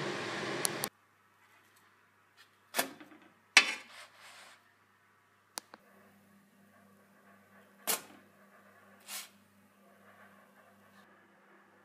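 A steady hiss that cuts off abruptly about a second in, then a handful of separate knocks and clicks of things being handled in a kitchen, over a faint low hum.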